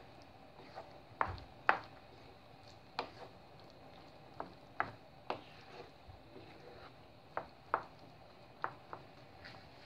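Wooden spoon stirring thick risotto in a pan, knocking against the pan's sides and bottom about a dozen times at an irregular pace.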